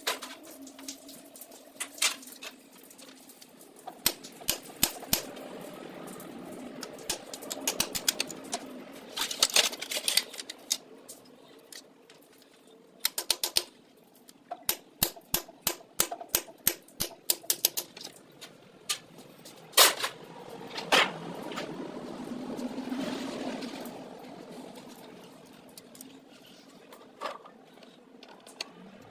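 Irregular sharp clicks and knocks from metal tools and parts being handled, some in quick runs and a few louder single knocks, over a low steady hum.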